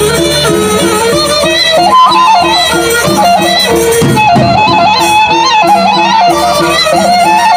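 Gendang beleq ensemble playing: large Sasak barrel drums beaten with sticks and cymbals under a wavering melodic line, with a steady repeating beat.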